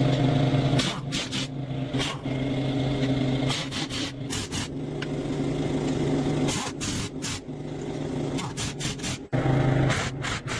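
Repeated rough scraping and rubbing strokes, irregularly spaced, over a steady low machine hum.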